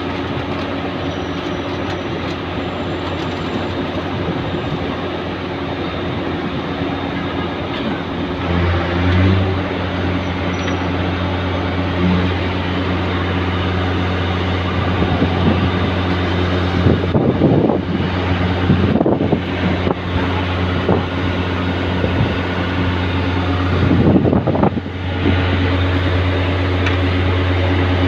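Ferry's engines running with a steady low drone over general mechanical noise; the drone grows stronger about eight seconds in, with a few brief louder rushes of noise later on.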